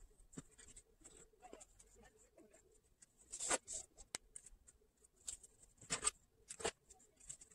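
Faint scratchy rustling of a stuffed cloth doll being handled and sewing thread being drawn through the fabric, with a few louder swishes about three and a half, six and nearly seven seconds in.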